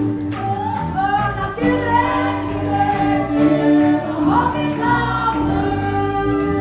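Live band playing a country-rock song: fiddle, electric bass and acoustic guitar under several voices singing together.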